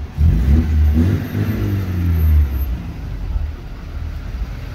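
A car engine revving as a vehicle drives past on the street. It is loudest in the first two and a half seconds, then dies down to a lower rumble.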